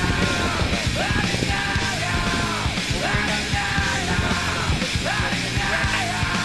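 Rock music with yelled vocals over a full band.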